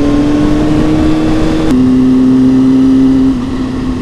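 A 2003 Honda CB600F Hornet's inline-four engine with a Mivv X-cone exhaust pulls under load with its pitch slowly rising. Just under two seconds in, an upshift drops the pitch to a steady lower note. A little after three seconds in, the throttle eases and the engine goes quieter.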